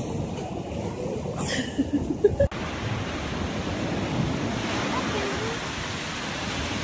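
Steady rushing of ocean surf with wind on the microphone, broken by a few short voice sounds about two seconds in.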